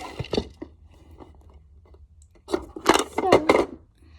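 Handling noise from small objects being picked up and moved: sharp clicks and rustles at first, then a louder stretch of rustling and clattering for about a second, some two and a half seconds in.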